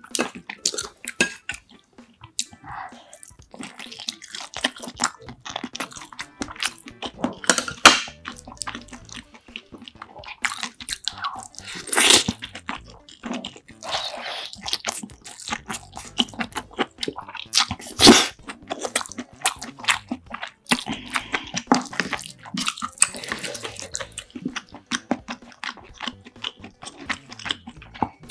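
Close-miked eating: wet chewing and mouth sounds of rice, soup and side dishes, with irregular clicks and clinks of chopsticks and a spoon against the dishes.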